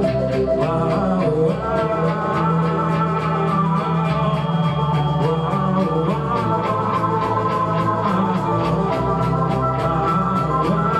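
A rock band playing live: drums keep a steady beat under long, sustained chords.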